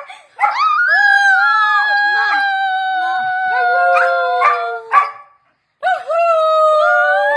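A dog howling ("singing") in long, held, wavering howls: one long howl, a brief break about five and a half seconds in, then another howl starting.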